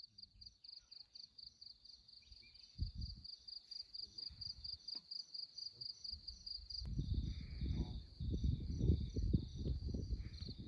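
Insect chirping in a fast, even pulse of about five high chirps a second. Low rumbling noise joins in about seven seconds in.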